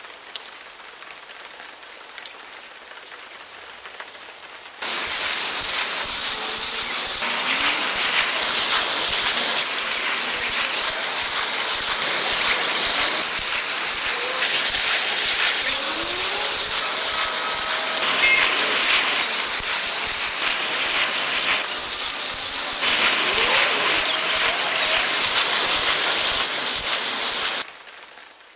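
Water spraying and splattering like heavy rain: a soft hiss that jumps suddenly to a loud, dense spatter about five seconds in, full of small clicks, with a few brief rising squeals. It cuts off abruptly near the end.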